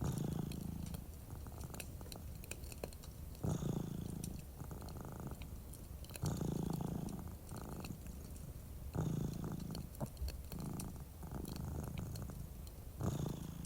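Domestic cat purring close up, the low rumble swelling with each breath about every three seconds, over the light crackle of a wood fire in a fireplace.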